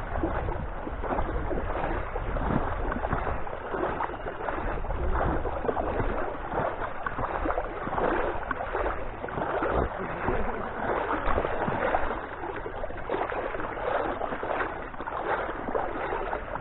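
River water rushing through rapids, a steady splashing wash.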